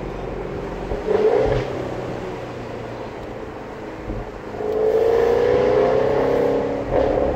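Jaguar F-Type R's supercharged 5.0-litre V8 under acceleration, heard from the open cabin with the roof down: a brief loud blip of revs about a second in, then a long pull from about four and a half seconds with the engine note rising steadily, ending in another short burst near the end.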